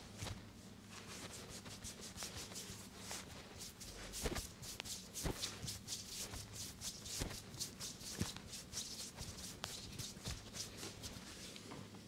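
Hands rubbing and kneading a bare forearm and upper arm in quick strokes, several a second, skin and sleeve brushing under the palms, with a few sharper clicks among them.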